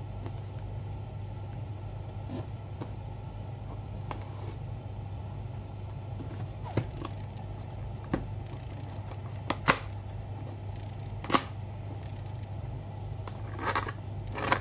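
A Machenike K600 keyboard's cardboard box being handled and opened: scattered light knocks, clicks and scrapes, a few seconds apart, over a steady low hum.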